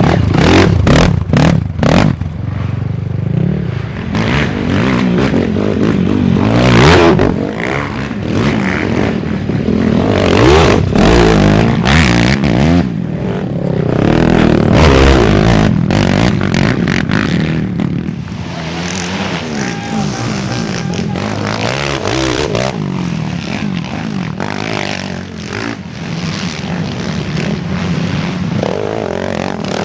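Racing quad (ATV) engines revving up and down hard as quads pass one after another through sand. There are sharp clattering knocks in the first couple of seconds, and the sound eases somewhat past the middle.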